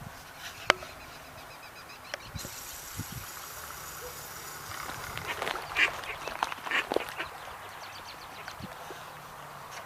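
Mallard ducks quacking: a short run of calls about five to seven seconds in. A single sharp click comes just under a second in.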